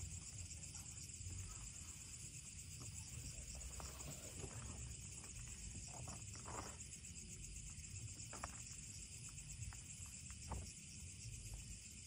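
Night insect chorus, a steady high trill of crickets, with a few soft knocks and rustles from gear being handled in a car's open boot.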